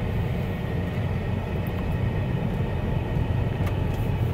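A car's engine and tyre rumble heard from inside the cabin as the car pulls away through an intersection from a traffic light and drives on; a steady low rumble.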